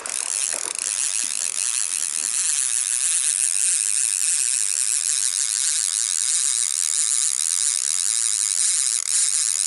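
Okuma Magda Pro line-counter reel's drag buzzing without a break as a hooked lake sturgeon runs and strips line off the spool.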